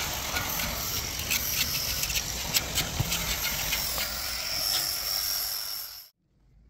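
A metal blade scraping flaking old paint off the bars of an iron gate: a rough, hissy scratching with many small clicks. It cuts off suddenly about six seconds in.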